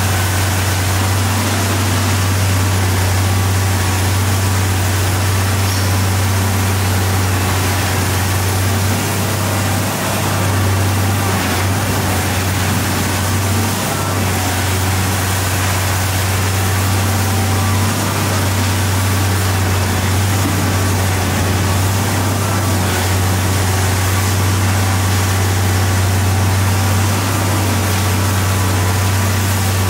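Komatsu PC1250 excavator's six-cylinder diesel engine running steadily, a deep, constant hum that dips briefly twice, over a broad steady hiss.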